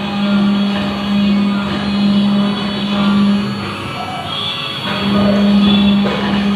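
Background music, with a steady low tone that drops out briefly in the middle and comes back.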